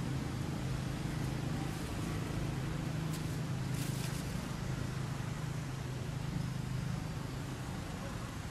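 A steady low engine hum, like a vehicle idling or running close by, with two brief crackles about three and four seconds in.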